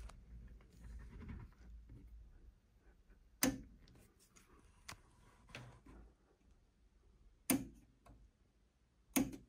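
Workbench handling noise from hands working on a cassette deck: three sharp clicks or knocks about four seconds apart, the first about three and a half seconds in, with fainter clicks and rustling between.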